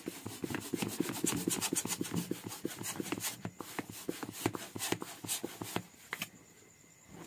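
Inflated rubber balloon being handled and rubbed, a fast, irregular run of rubbing scrapes that stops about six seconds in.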